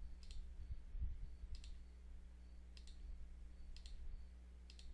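Computer mouse buttons clicking faintly, several separate clicks a second or so apart, over a low steady electrical hum.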